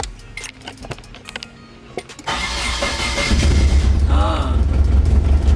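Nissan 240SX S13 engine started on the key after a few light clicks: the starter cranks about two seconds in and the engine catches a second later, then runs loud and steady. It is the first start on newly fitted fuel injectors, and the owner says it doesn't sound great and is idling funky.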